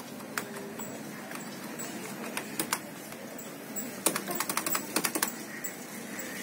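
Computer keyboard keystrokes: a few scattered key presses, then a quick run of keystrokes about four seconds in, over a steady background noise.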